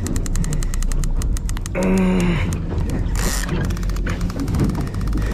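Big-game fishing reel clicking rapidly under load while a southern bluefin tuna is fought on rod and reel; the clicks come faster in the second half. A short pitched sound rises briefly about two seconds in, over a steady low hum.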